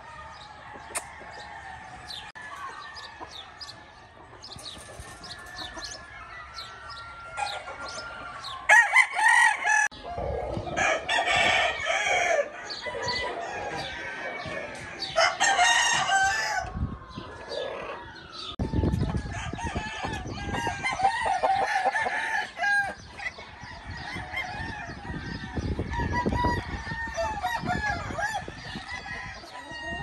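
Roosters crowing several times, the loudest crows about nine to sixteen seconds in, with chickens clucking between them.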